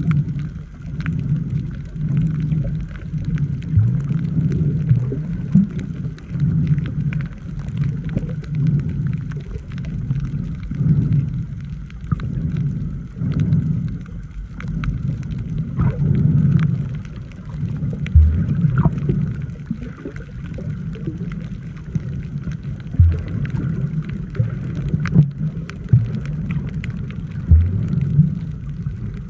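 Muffled underwater noise from a submerged camera: a low water rumble that swells and fades every second or two, with a few short low thumps.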